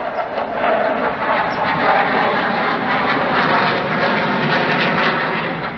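Military jet aircraft flying low overhead: loud, steady engine noise with no break.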